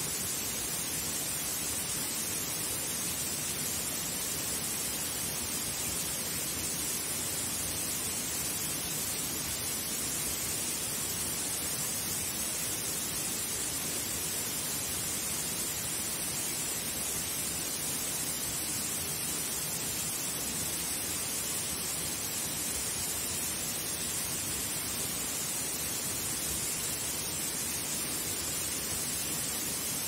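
Waterfall pouring down a rock face into a pool: a steady, unchanging rush of falling water.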